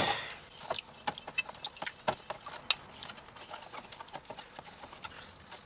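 Irregular light clicks and taps of a metal turbocharger housing being handled and cleaned.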